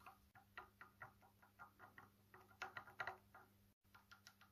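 Faint, light clicks and ticks, about two or three a second, of small metal parts being handled and fitted by hand: a nut and a shackle bushing on a Model T rear axle's spring mount.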